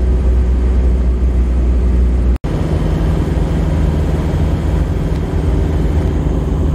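Isuzu Panther diesel engine droning steadily at highway speed, with tyre and wind noise, heard from inside the cabin. The sound drops out for an instant about two and a half seconds in, then resumes with a slightly different engine note.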